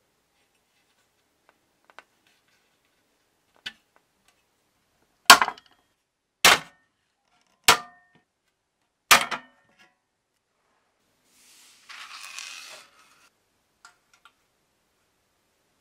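Hand pop-rivet tool setting a blind rivet through a metal strap tab into a brass box: four sharp snaps a little over a second apart as the handles are squeezed. A short rattle follows near the end, with a few light taps from handling.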